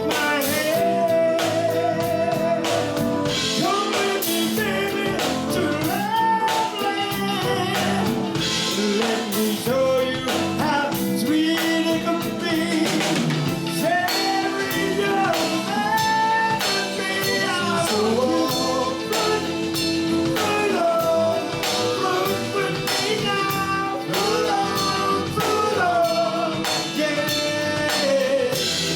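A band playing with a singer: a melodic voice over guitar and drums, with a steady beat.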